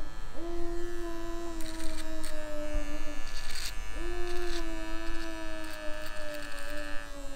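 Cordless hair clipper buzzing as it trims a beard along the cheek, its hum sagging slightly in pitch. It stops about three seconds in and starts again with a rising whine under a second later, with short crackles of hair being cut.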